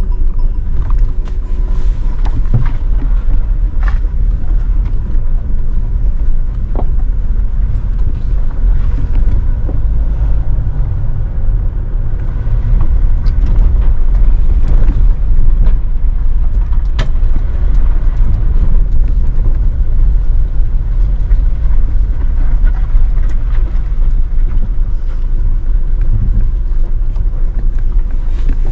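Toyota Hilux driving over a dirt and gravel track, heard from inside the cab: a steady low rumble of engine and tyres, with a few sharp clicks.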